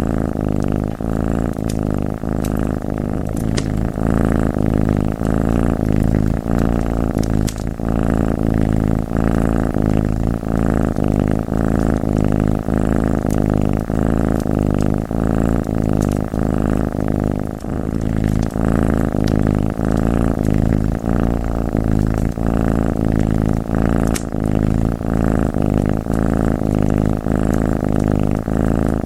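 Domestic cat purring close up in a steady, loud rhythm, with a few sharp pops from a crackling wood fire.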